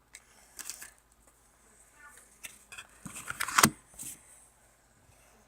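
Crinkling and rustling of a Pokémon booster pack's foil wrapper and its cards being handled, in short scattered bursts, loudest about three and a half seconds in.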